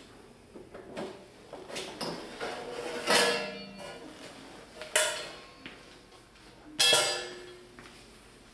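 Sheet-metal cover of a Zanotti split refrigeration unit's electrical box being handled and lifted off: a few light clicks, then three sharp metallic clanks with a brief ring, about two seconds apart.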